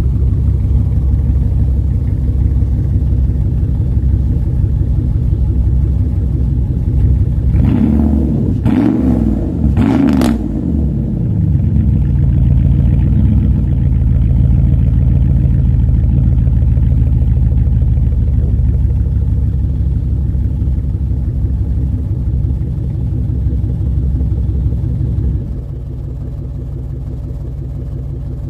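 Pontiac Grand Prix GXP's 5.3-litre V8 idling through its quad-tip exhaust, with three quick throttle blips about a third of the way in that each fall back to idle. Near the end the idle settles lower and quieter.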